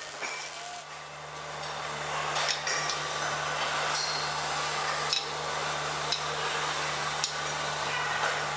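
A steady hiss and low hum of workshop equipment, with a few light metallic clinks as a spirit level is set against a steel pipe elbow.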